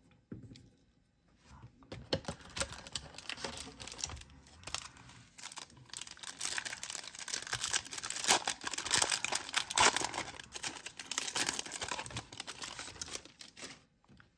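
Foil wrapper of a 1991 Upper Deck football card pack being torn open and crinkled by hand, a dense crackling that starts about two seconds in and is loudest around the middle.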